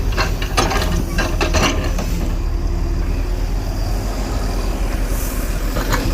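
Heavy diesel earthmoving machine engine running steadily, with a quick run of metallic clanks in the first two seconds and one more clank near the end.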